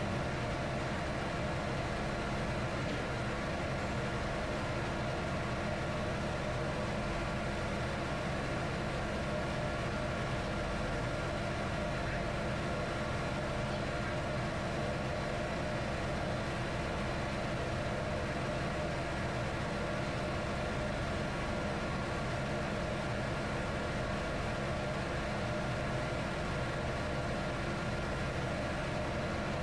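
Steady drone of running engine-room machinery: an even mechanical noise with several fixed hums, unchanging throughout, with no tool knocks or clinks standing out.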